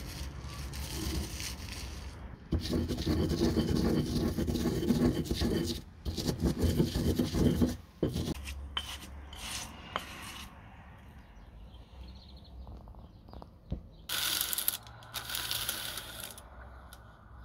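Granite pestle grinding coarse salt and chopped wild garlic leaves in a granite mortar: a gritty rubbing and scraping. It comes in spells and is loudest in the first half, then quieter, with two short bursts of hiss near the end.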